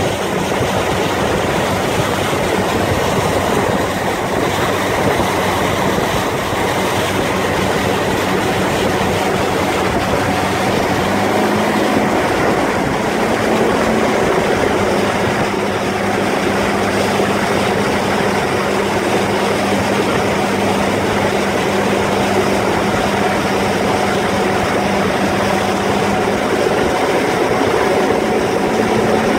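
Outboard motors running at full speed over water, among them a 7.5 hp Johnson two-stroke outboard pushing a 12-foot flat boat at about 22 mph, with rushing water and wind. The engine drone holds steady and rises slightly in pitch about a third of the way in.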